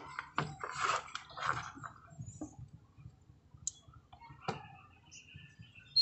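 Handling noise: a plastic set-top receiver box being set down on a wooden tabletop and its cables shifting, followed by a few scattered clicks and one sharper knock about four and a half seconds in.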